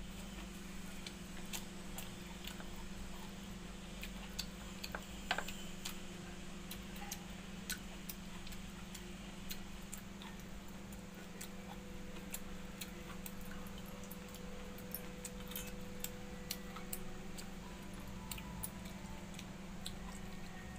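Eating sounds: small, irregular clicks and smacks of mouth and fingers as watered rice (pakhala) is scooped by hand from a steel bowl and eaten, over a steady low hum.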